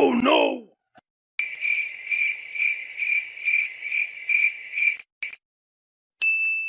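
Crickets chirping in a steady, even rhythm of about three high chirps a second, the stock 'awkward silence' sound effect. Before it comes a brief sound sliding up and down in pitch, and near the end a single high steady beep.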